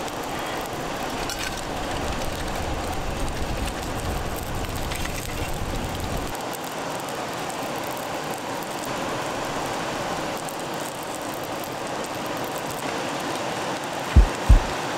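Steady rush of a flowing river, with a low rumble underneath that stops about six seconds in. Near the end, the low thumping beat of a music track starts.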